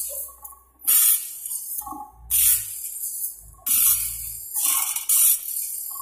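Automatic band saw blade sharpening machines grinding sawmill band saw blades, the abrasive wheel hissing against one tooth after another in repeated short bursts, roughly one every second or so.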